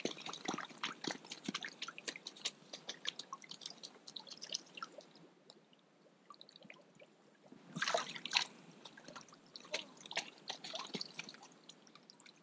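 Water dripping and small wet clicks and rustles from a muddy landing net as hands pick through it for small fish, the drips scattered and irregular, with a brief louder patch about eight seconds in.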